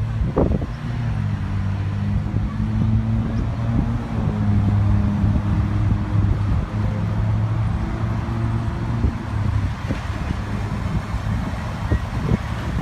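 Motor vehicle engine running with a steady low hum, over road traffic noise; the hum fades out about nine seconds in.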